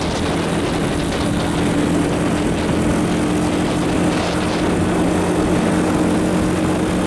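Motor vehicle driving at a steady cruising speed on asphalt: an even engine drone held at one pitch, with steady tyre and wind rush.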